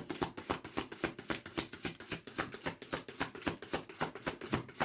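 A deck of oracle cards being shuffled by hand: a quick, even run of crisp card clicks, several a second.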